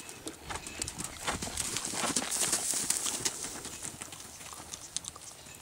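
Hoofbeats of a horse trotting on soft arena dirt, growing louder as it passes close and then fading.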